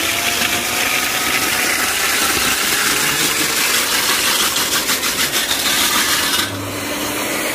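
Electric core drill running, its large wet diamond core bit grinding steadily, now through the asphalt and into the dirt beneath. The high hiss drops away suddenly about six and a half seconds in.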